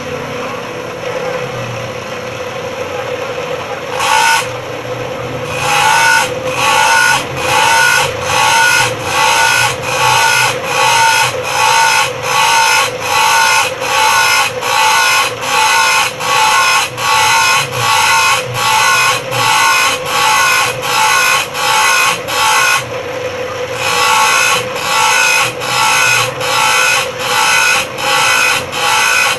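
Bench grinder motor running with a steady hum; from about four seconds in, a metal saw blade is pressed against the wheel in short, evenly repeated strokes, about one and a half a second, grinding the teeth of the saw one by one, with a brief break a little before the end.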